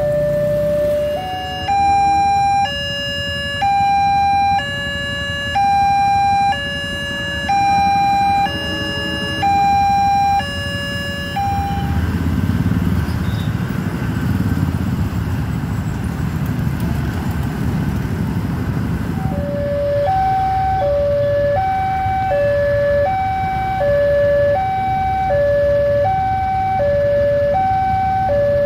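Electronic two-tone warning alarm of a railway level crossing, alternating between a low and a high tone about once a second, stopping about eleven seconds in. A low rumble follows for several seconds, then the two-tone crossing alarm starts again, alternating faster.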